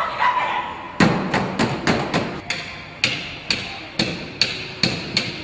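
Repeated sharp blows against a pickup truck's side-window glass, over a dozen knocks starting about a second in, quick at first and then about two a second; the glass is cracking under them.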